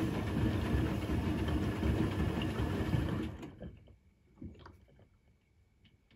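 Electrolux EWC1050 washing machine running its final rinse, the drum turning with water sloshing. It stops about three and a half seconds in, leaving only a few faint clicks.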